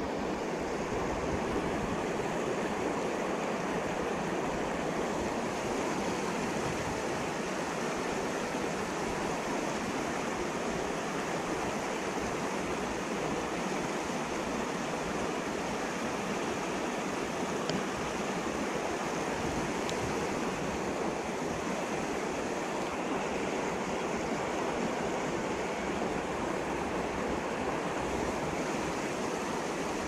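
Creek rapids rushing steadily over rocks, close by.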